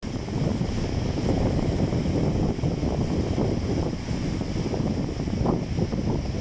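Wind buffeting the microphone with a steady low rumble, over the wash of Caspian Sea waves.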